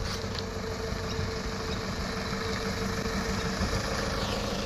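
Toyota Hilux ute's engine running steadily as the vehicle rolls slowly up and pulls in, an even low hum.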